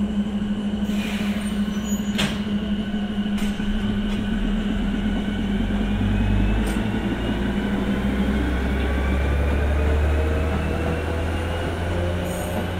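Electric train running: a steady low hum, then about six seconds in a whine that rises in pitch as the traction motors gather speed, with a deepening rumble underneath and a few sharp clicks.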